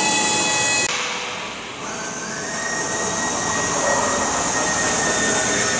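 A power tool running with a steady high whine and hiss; its tone changes about a second in, and a new steady whine sets in about two seconds in.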